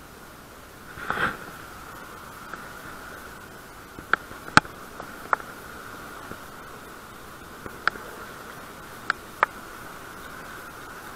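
About six sharp, separate clicks from handling a spincast fishing reel and its line, over a steady hiss, with a brief soft rushing noise about a second in.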